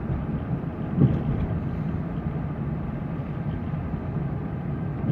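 Steady low drone of a vehicle driving along, with one brief knock about a second in.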